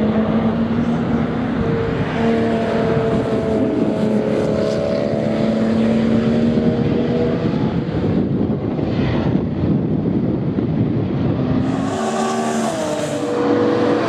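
Porsche 911 race car's flat-six engine running under power as it comes through the corner and pulls away. The note holds steady and gradually thins out. Near the end, another race car's engine rises and then falls in pitch as it goes by.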